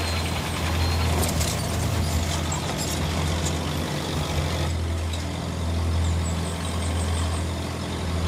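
Heavy vehicle engine running steadily with a deep, even hum. About halfway in, the higher hiss above it drops away.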